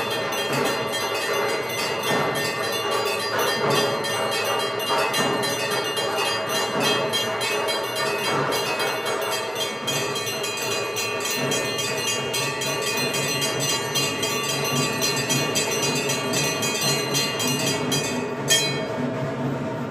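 Temple bells ringing fast and without a break during the mahapuja, over steady held tones. The ringing stops with a sharp clang about a second and a half before the end.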